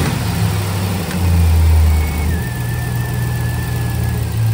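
Chevrolet 5.3L V8 engine in a 2006 Silverado running just after start-up, its idle wavering for the first couple of seconds and then settling steady. A faint thin whistle runs over it through the middle. The owner hears no unusual noises and judges it to be running well.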